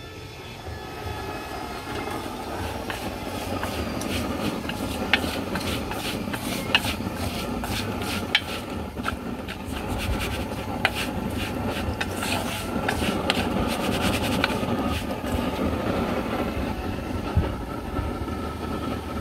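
Long wooden chopsticks clicking and scraping against a steel mixing bowl, with rapid uneven taps as small fish are tossed in dry batter flour, over a steady background hiss.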